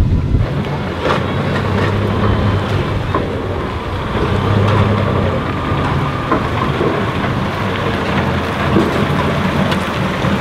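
Engine of a vintage Leyland double-decker bus running steadily as the bus moves slowly forward.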